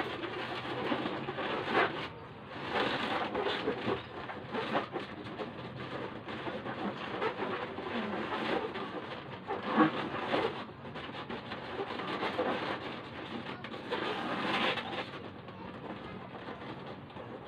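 Latex balloons rubbing and squeaking against each other as they are twisted and pressed into a cluster by hand, with irregular louder squeaky strokes.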